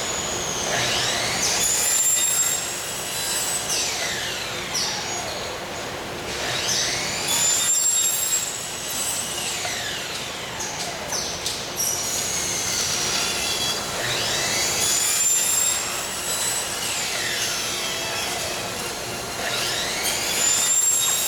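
Factory machinery running, a motor whine that sweeps down and back up in pitch, repeating about every six to seven seconds over a steady shop hum.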